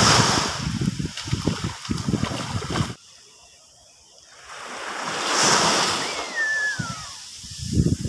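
Small waves breaking and washing up a sandy beach, with wind buffeting the microphone. The sound cuts off abruptly about three seconds in, then the wash of another wave swells and fades, and a single short falling whistle is heard a little after the middle.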